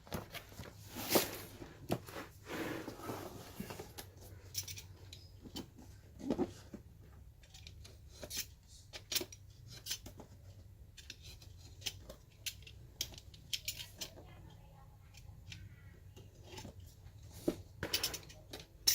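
Cardboard keyboard box being opened and its packaging handled: irregular clicks, taps and short scraping swishes, with a louder burst near the end.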